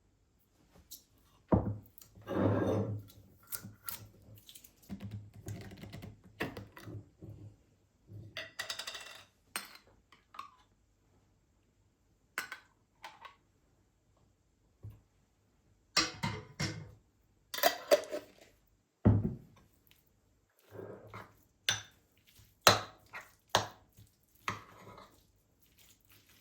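Household items being handled and set down in a kitchen: scattered clinks and knocks of dishes and utensils, with a couple of short rustling stretches between quiet gaps.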